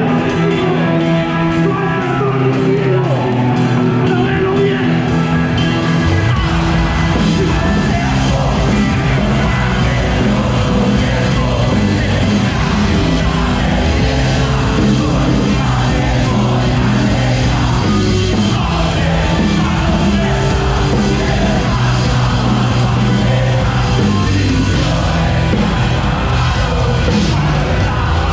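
Live rock band playing, with shouted singing. The low end fills in about six seconds in, as bass and drums join.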